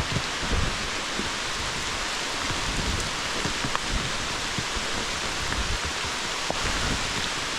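Pouring rain making a steady, even hiss, with scattered low thumps and rumbles underneath.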